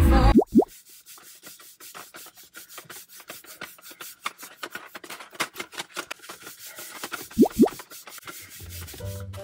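Pringles potato chips crunching and rattling, a dense irregular crackle, as the chips are tipped from the can into the mouth and eaten. Twice, near the start and again late on, a short loud rising sweep in pitch cuts through.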